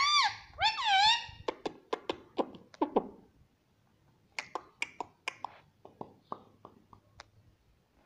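Indian ringneck parrot giving two loud pitched calls, each rising then falling, then a run of sharp clicks and taps, with a short pause before a second run of clicks.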